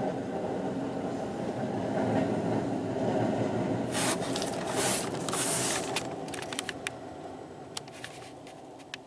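2007 Hess toy monster truck's electronic engine sound effect: a steady rumble with short bursts of hiss about four to six seconds in, fading out over the last few seconds.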